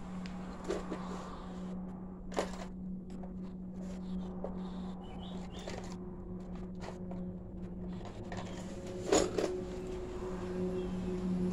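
Steady low electrical hum with a few faint, scattered clicks and knocks.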